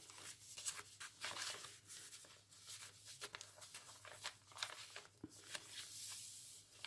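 Paper pages, tags and cards of a handmade junk journal rustling and tapping softly as they are handled and turned, in short irregular bits, over a faint steady low hum.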